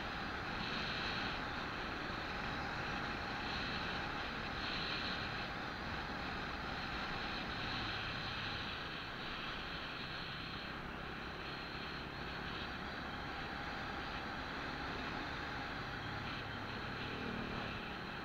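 Steady wind rush and road noise from a vehicle driving along a road, with a low engine hum underneath.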